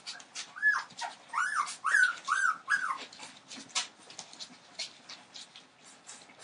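Entlebucher Mountain Dog puppies about 18 days old whimpering: five short squeaks that rise and fall in pitch within about two and a half seconds, amid many light clicks and scuffles.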